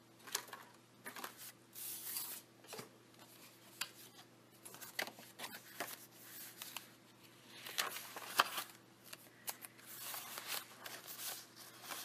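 Paper pages of a handmade junk journal rustling and brushing under the fingers as they are handled and turned, in faint irregular rustles.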